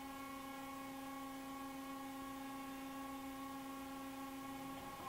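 Accurpress 60-ton CNC hydraulic press brake's hydraulic pump and motor running at idle, a steady, unchanging hum.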